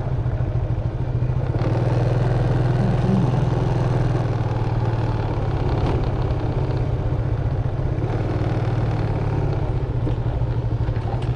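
Motorcycle engine running at a steady pitch.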